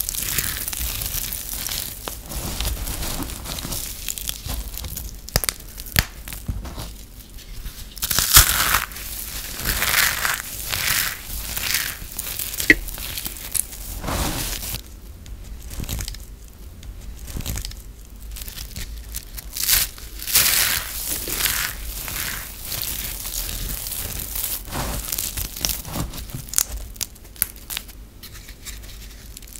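Dry, crispy recycled soap shavings crushed, squeezed and sifted by hand: irregular crunching and crisp rustling, with a few sharper cracks.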